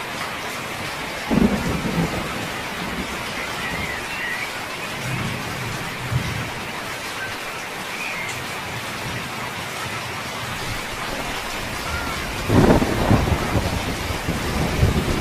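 Heavy rain pouring down steadily, with a short low rumble about a second in and a longer, louder rumble near the end.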